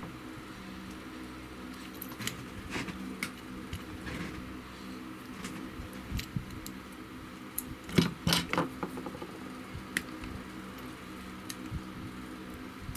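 Small tools and parts being handled at a workbench: scattered clicks and taps, with a sharper cluster of knocks about eight seconds in, over a steady low hum.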